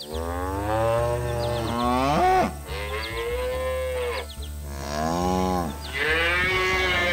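Cows mooing: about four long, drawn-out moos one after another, the first ending in a rising pitch. A low steady hum runs underneath.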